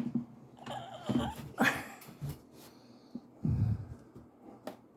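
A sharp click, then scattered rustling, scraping and knocks from handling an old sewing machine in its suitcase, with a person's breathing.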